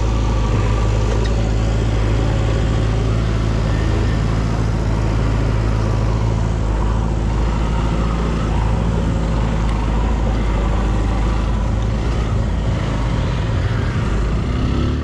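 Motorcycle engine running steadily while riding, with wind and road noise; the low engine note weakens after about ten seconds.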